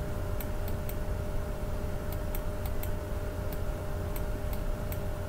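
Irregular light clicks of a computer mouse as digits are drawn on screen, over a steady low electrical hum.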